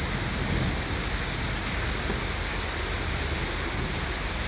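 Steady rain falling in a thunderstorm, a continuous even hiss.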